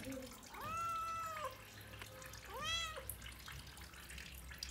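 A domestic cat meowing twice: a long meow about half a second in, then a shorter one that rises in pitch near the three-second mark.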